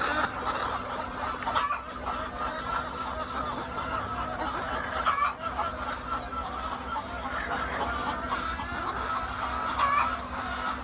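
A flock of laying hens clucking and calling together in a steady chatter, with a few louder squawks about a second and a half, five seconds and ten seconds in, over a steady low hum.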